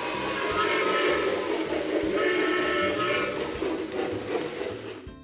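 Steam locomotive sound effect: rhythmic chugging with two whistle blasts, about a second in and again about two seconds in, fading away near the end.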